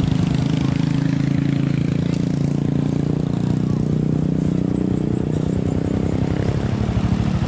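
A motor vehicle's engine running steadily close to the microphone: a low hum with a fast, even pulse that neither revs up nor dies away.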